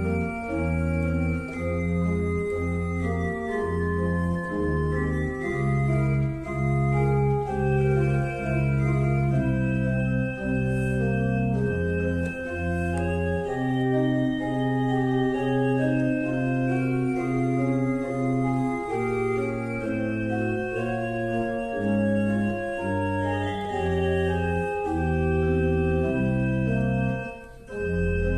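Organ music: held chords over a bass line that steps from note to note, with a brief break between phrases near the end.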